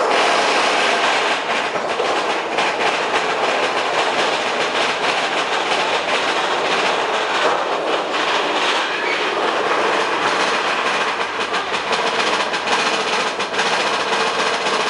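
Big Thunder Mountain Railroad mine-train roller coaster heard from on board: the cars run along the track with a steady rushing noise and fast, continuous clattering of the wheels.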